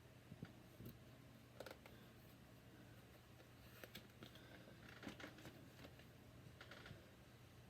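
Faint, scattered clicks and light taps of Lego Technic plastic pieces being handled and fitted together, over a low room hum.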